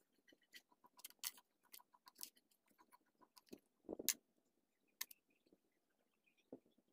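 Near silence broken by faint, scattered clicks and light taps of hands handling small pieces of soft clay on a wooden board, with a louder tap about four seconds in.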